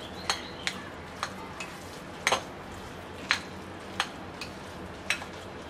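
Spoon stirring and mixing noodles with a mashed paste in a glass bowl, clinking against the glass about nine times at uneven intervals; the loudest clink comes a little over two seconds in.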